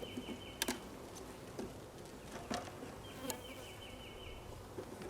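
Honeybees buzzing around an open hive during an inspection. A few sharp clicks sound over them. Twice a high, rapid trill of repeated notes comes in, each time for about a second and a half.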